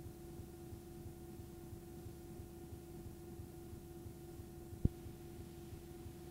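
Steady electrical hum with faint low crackle, the playback noise of blank videotape, and one sharp click nearly five seconds in.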